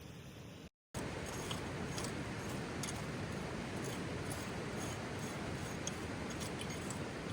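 Steady rushing of a river flowing close by, with faint scattered ticks over it; before a cut about a second in, a quieter steady hiss.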